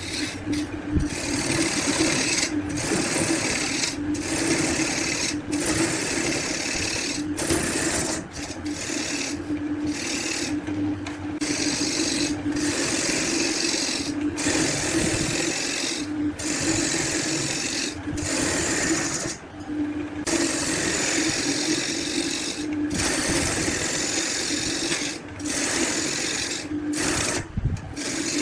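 An electric power tool running with a steady motor hum while working wood, with a rasping, rubbing noise that breaks off briefly every second or two.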